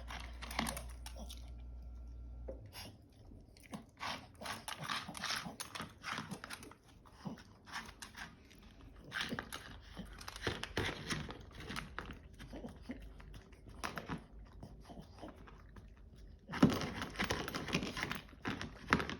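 A dog crunching and chewing a hard treat: irregular crunches and clicks of teeth, with a louder flurry of crunching near the end. A low hum stops about two and a half seconds in.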